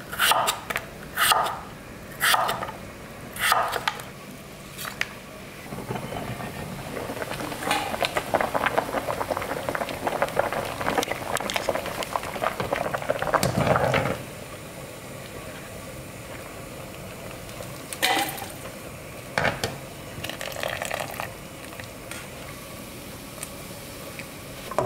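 A kitchen knife slicing taro on a wooden cutting board, about four strokes roughly a second apart. Then a pot of anchovy broth at a rolling boil, bubbling and crackling, which stops suddenly; after that a quieter stretch with a few light knocks.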